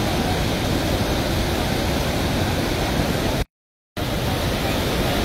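Floodwater pouring over the edge of a road and churning below, a steady loud rush of water. The sound cuts out completely for about half a second a little after three seconds in, then resumes.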